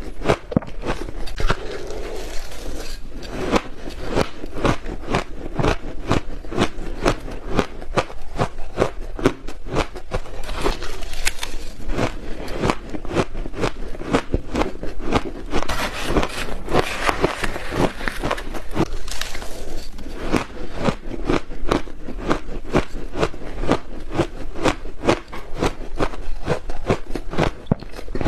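Close-miked ice being bitten and chewed: a dense run of sharp crunching cracks, several a second, without a break.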